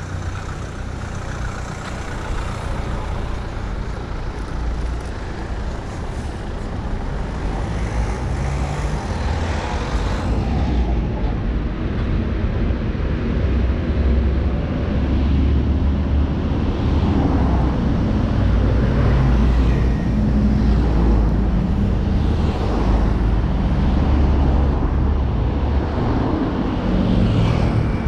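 City street traffic with the low engine rumble of a heavy vehicle running close by, growing louder over the first half.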